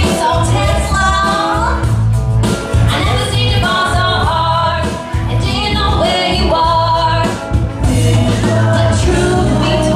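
Music: a song with a singing voice over a steady bass beat.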